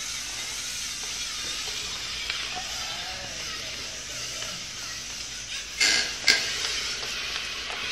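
LEGO Mindstorms NXT robots' electric servo motors and gears whirring as the two machines push against each other, with a wavering whine over a steady hiss. Two sharp plastic clacks come about six seconds in, half a second apart.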